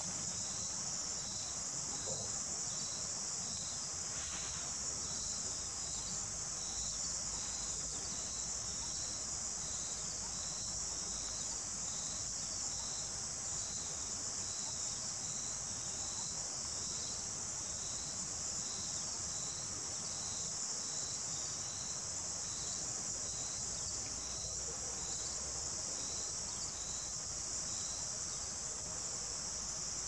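Insect chorus: a steady high-pitched drone with a short chirp repeating evenly a little more than once a second.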